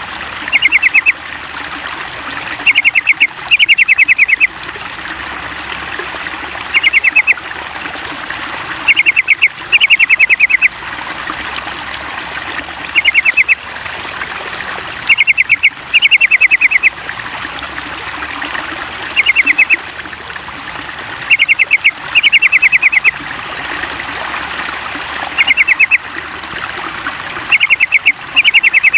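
Yellow-vented bulbul (trucukan) calls played as a looped lure: short bursts of rapid chattering notes that recur in a regular pattern every few seconds, over a steady sound of trickling water.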